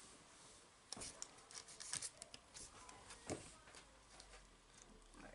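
Faint rustling and a few soft clicks of Pokémon trading cards being slid one by one through a freshly opened pack.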